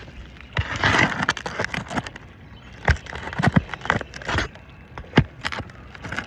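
Tool scraping against an asphalt roof shingle, followed by several sharp knocks, as a damaged 3-tab shingle is worked loose for removal.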